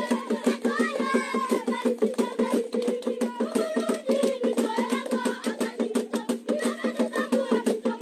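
A group of West African children chanting and singing together over a fast, steady, percussive beat in a rhythmic play song.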